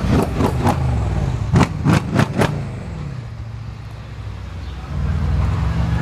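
Mercedes-AMG car's exhaust: the engine note comes off revs with a string of sharp pops and crackles in the first couple of seconds, then falls away and rises again as the car accelerates near the end.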